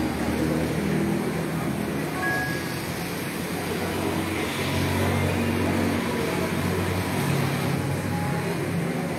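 Steady road traffic noise: a continuous rumble of passing vehicles with a low, shifting engine hum, no single event standing out.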